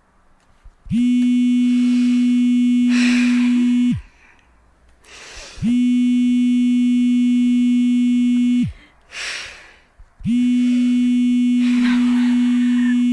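Mobile phone vibrating for an incoming call, its motor buzzing against a hard surface in three long pulses about 3 s each with short gaps between. Each buzz slides up in pitch as it starts and sags as it stops.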